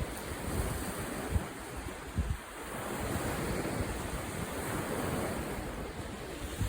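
Wind buffeting the microphone over the steady wash of sea waves, with a couple of brief low thumps about a second and two seconds in.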